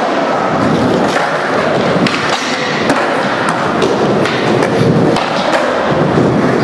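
Skateboard wheels rolling over a concrete floor, with scattered clacks and thuds of boards.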